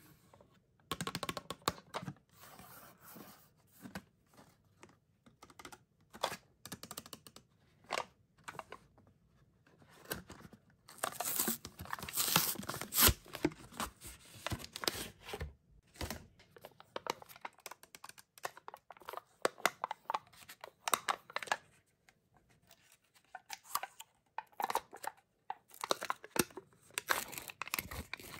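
Hands opening a Snack Pack Juicy Gels cardboard box: scattered scratches and clicks on the cardboard, and a long run of cardboard tearing around the middle. Near the end a plastic cup's lid is peeled back, with more crinkling clicks.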